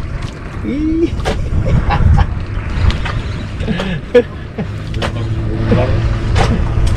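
Steady low rumble of a motor and wind on an open outrigger fishing boat, with a few sharp knocks. About five seconds in, a steady engine hum sets in.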